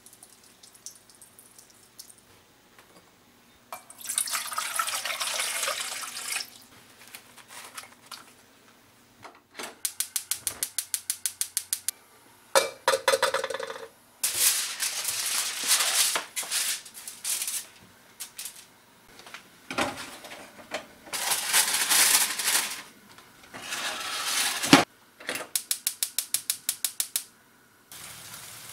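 Kitchen sounds: several bursts of running tap water, and twice a run of rapid, even clicking at about six clicks a second.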